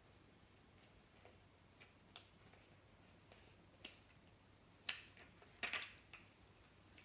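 Scattered sharp plastic clicks and snaps from the back plate and strap fittings of a Koho goalie mask as they are handled and fastened, with the loudest clicks bunched together near the end.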